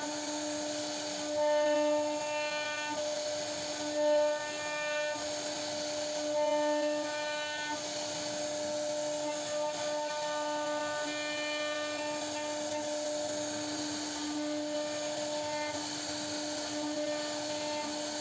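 CNC router carving wood, its spindle holding one steady whine over a cutting hiss, with a higher whine that comes and goes every second or two as the machine moves.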